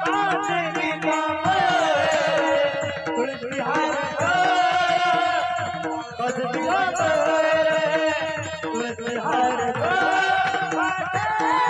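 Woman singing a Marathi devotional abhang in long, gliding melodic phrases over steady held accompaniment tones, with tabla-style drum strokes keeping the beat.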